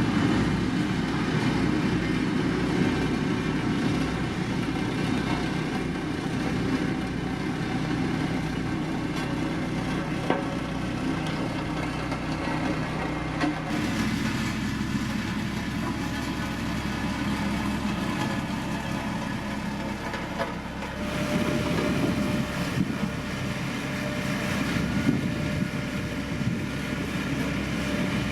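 Heavy diesel engines of road-building machines running steadily. The engine sound changes abruptly about 14 and 21 seconds in.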